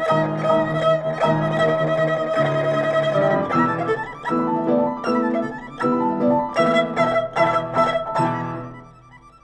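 Erhu and piano duo: the erhu holds a long high bowed note over repeated piano chords, then from about three and a half seconds in the two play a run of short, separated notes together. The music dies away just before the end.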